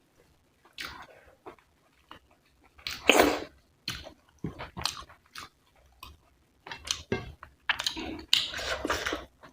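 Close-miked chewing and biting of a mouthful of food, wet mouth noises and crunches coming in irregular bursts, the loudest about three seconds in and again near the end.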